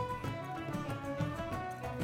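Background music in a Middle Eastern folk style, with held melody notes over a steady beat.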